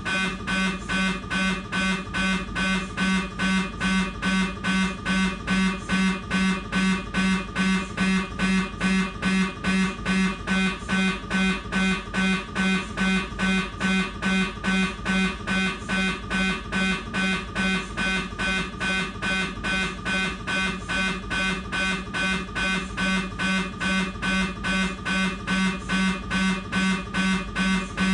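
Siemens MAGNETOM Lumina 3 T MRI scanner's gradient coils running a T2-weighted fat-suppressed BLADE transverse sequence: a regular buzzing beep that repeats about three times a second.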